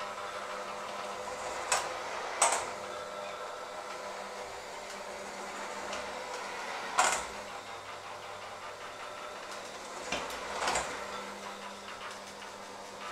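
Electric hand mixer running steadily, its beaters working a thick dough in a stainless steel bowl. A handful of sharp knocks of the beaters against the metal bowl cut through the hum, the loudest about seven seconds in.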